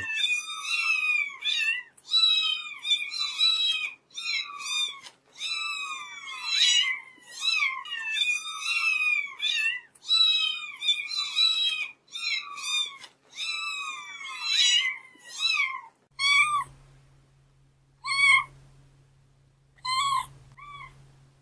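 Very young kitten mewing: a quick run of short, high-pitched cries, one or two a second. Near the end it thins to a few separate cries, with a faint low hum beneath them.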